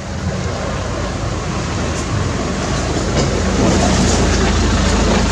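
A motor running steadily, with a low hum and a rumbling noise that grow louder over the first few seconds.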